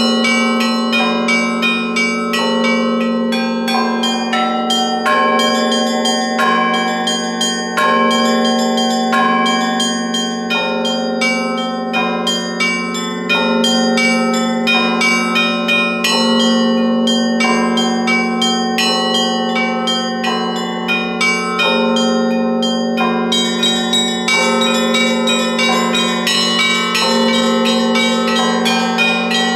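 Russian Orthodox church bells rung in a continuous peal: quick, rhythmic strikes of small high-pitched bells over a deeper bell struck every second or two. The high bells grow busier about two-thirds of the way through.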